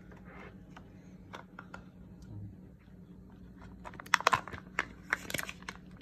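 Foil packet around an inkjet print head being torn open and crinkled by hand, with a burst of sharp crackles beginning about four seconds in.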